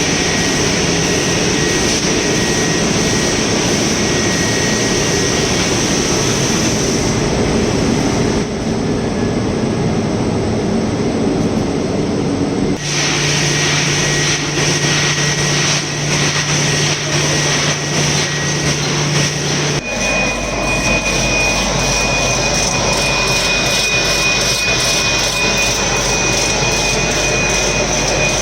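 Printing machinery in a box-printing factory running loud and steady, with hums and a steady high whine. The sound changes abruptly three times, as from one machine to another, and in the last part it has a fast, regular mechanical beat.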